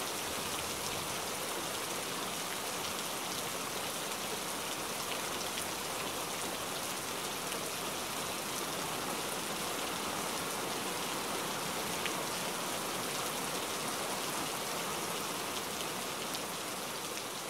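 Steady rain falling, a constant hiss sprinkled with small drop ticks.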